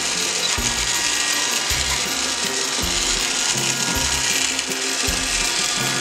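Battery-powered toy vacuum cleaner running: the small motor gives a steady, even whirring hiss.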